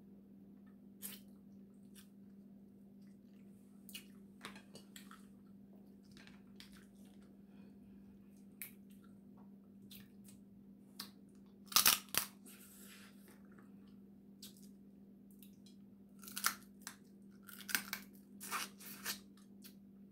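Cooked crab-leg shell being cracked and torn apart by hand, with scattered sharp cracks and snaps: the loudest a burst about twelve seconds in, then a cluster near the end. A steady low hum runs underneath.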